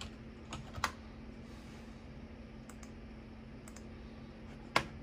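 Computer keyboard keystrokes: a few quick key clicks in the first second, ending in a sharper press, then scattered single clicks, a louder one near the end. A steady low hum runs underneath.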